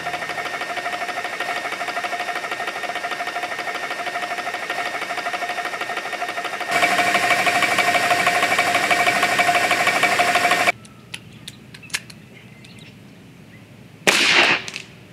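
Portable high-pressure air compressor running steadily with a rapid pumping beat and a fixed hum while it fills an air rifle through its gauge. It gets louder partway through and then cuts off suddenly. After a few faint clicks, one sharp, loud air-rifle shot comes near the end.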